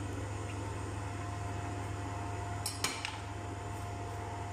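A metal table knife clinks sharply twice against a ceramic plate, in quick succession about three seconds in, over a steady low hum.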